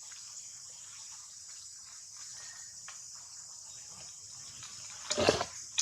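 Crickets and other insects chirring steadily in a high, even band. About five seconds in, a brief loud rustling burst breaks in over them.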